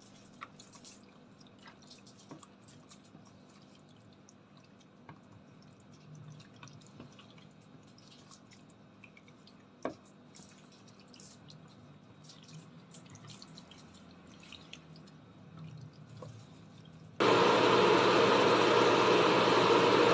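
Faint wet squelching and light clicks of tongs mixing yogurt-marinated chicken pieces in a plastic tub. About three seconds before the end, a loud steady rushing noise cuts in abruptly.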